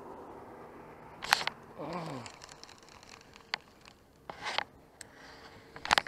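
Handling noise from a baitcasting rod and reel being worked by hand: three short scuffing bursts, about a second in, around four and a half seconds and near the end, with a few single clicks between. A brief low falling hum about two seconds in.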